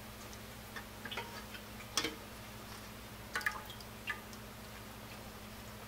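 Whey dripping from the cheesecloth-wrapped curds into the pan below: a few faint, irregular drips and ticks, the clearest about two seconds in, over a steady low hum.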